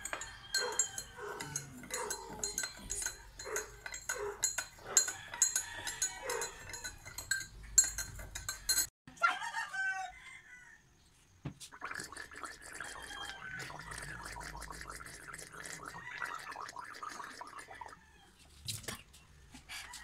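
Metal spoon clinking rapidly against a drinking glass, stirring salt into water, for about the first nine seconds. After a short pause, a person gargles salt water for about six seconds.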